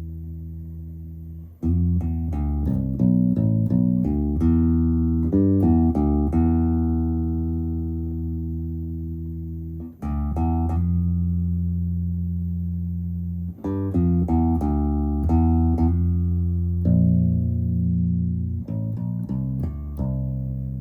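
Electric bass played through an amp: four runs of quickly plucked notes, each left to ring and die away. Its tone changes while a note rings, near the 17-second mark, as the pickup-blend and bandwidth knob is turned.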